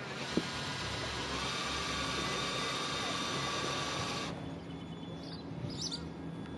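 Cordless drill running steadily as it bores a hole through the gel coat and fibreglass of a sailboat hull, then stopping suddenly about four seconds in.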